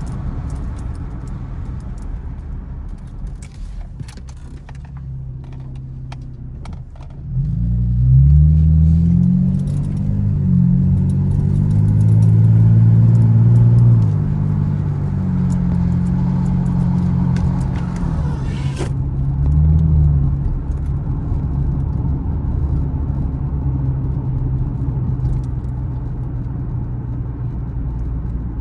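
Chevrolet Camaro's engine driving along at a low rumble. About a quarter of the way in it opens up hard under acceleration, its pitch climbing and stepping as it goes through the gears for several seconds. It then settles back to a steady cruise, with one short rev along the way.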